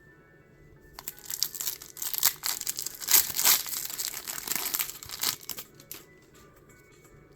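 Foil Pokémon booster pack wrapper crinkling and tearing as it is ripped open by hand, a dense run of crackles from about a second in until near the end, with faint background music underneath.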